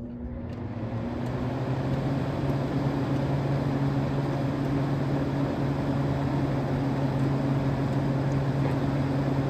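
Vintage Gibson window air conditioner's fan motor starting and spinning up over the first couple of seconds, then running steadily with a low hum and a rush of air. The compressor is not running: the unit is set to fan only.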